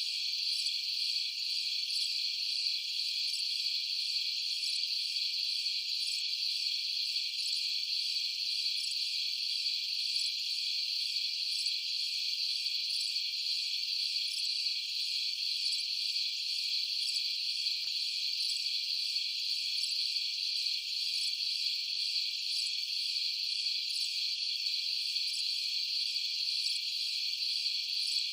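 A steady chorus of crickets chirring at night, a dense high trilling that never lets up.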